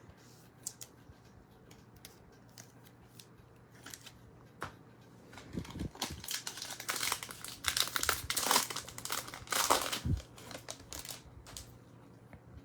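Foil trading-card pack wrapper being opened and crinkled by hand, with small clicks and rustles of card handling around it; the crinkling is densest and loudest in the middle.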